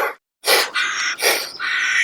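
An animal calling: a string of short calls in quick succession, with a brief gap just after the start. The same sequence repeats like a loop.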